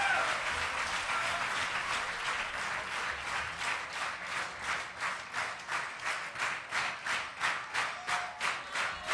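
Audience applauding in a hall; about three seconds in, the clapping falls into rhythmic unison, about two and a half claps a second.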